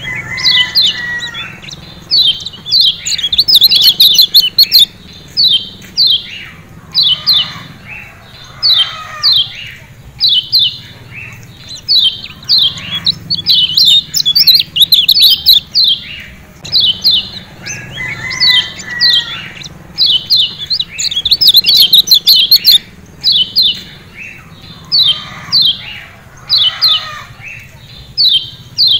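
Kecial kuning (Lombok yellow white-eye, a Zosterops) giving sharp, high 'ciak ciak' chirps in quick runs of short down-slurred notes. Denser, rapid flurries come every few seconds.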